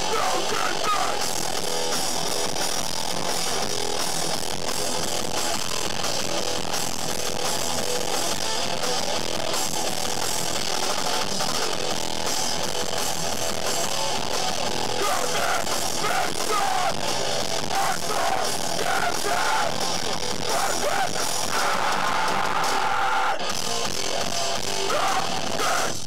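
Hardcore band playing live at full volume: distorted guitar, bass and drums with shouted vocals.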